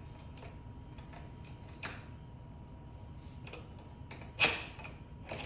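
A few sharp clicks and knocks over a steady low hum, the loudest knock coming about four and a half seconds in.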